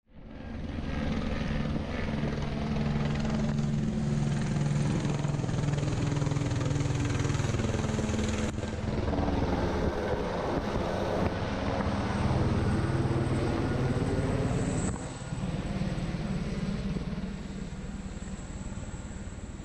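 Border Patrol helicopter flying low overhead, its rotor and engine beating steadily. It grows quieter over the last few seconds as it moves off.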